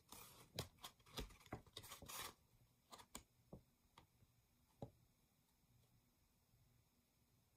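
Faint rustling and soft clicks of a paper scroll being handled, busiest in the first two seconds, then a few scattered light ticks and near silence.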